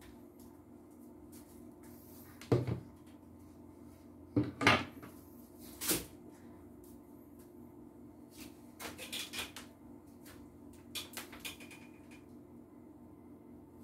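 Hard knocks of a plastic vacuum-cleaner housing being set down and moved on a wooden workbench, the loudest about two and a half, four and a half and six seconds in, followed by lighter clattering of parts being handled. A steady low hum runs underneath.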